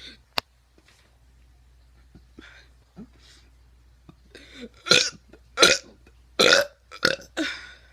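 A teenage boy burping: a quick run of about four loud burps in the second half, roughly two a second. A single sharp click comes just after the start.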